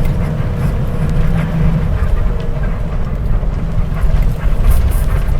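Tourist bus travelling on the highway: a steady low rumble of engine and road noise, heard from inside the bus.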